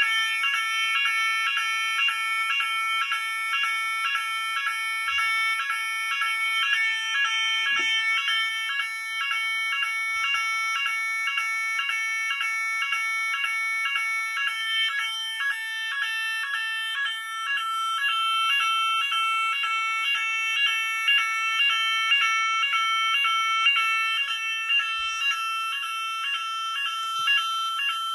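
Fulleon Roshni RoLP fire alarm sounder sounding the French NF S 32-001 general-evacuation tone, a loud pulsing alarm pattern repeating about twice a second. A steady higher tone sounds underneath for the first seven seconds or so.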